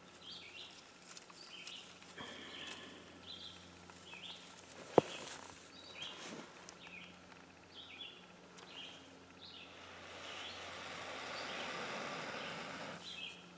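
Small birds chirping again and again, with one sharp click about five seconds in. Near the end comes a steady breathy rush lasting about three seconds: blowing into an inner-bark tinder nest to bring a punk-wood ember to flame.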